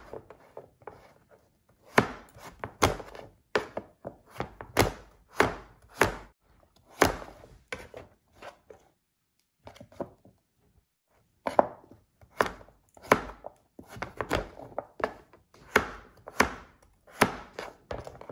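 Chef's knife chopping peeled pumpkin into chunks on a plastic cutting board: a series of sharp knocks as the blade cuts through and hits the board, about one to two a second, with a short pause about halfway through.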